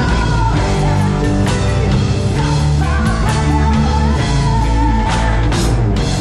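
Heavy rock band playing live at full volume: distorted electric guitar, bass and drum kit with regular drum and cymbal hits, and a long sustained melody line on top.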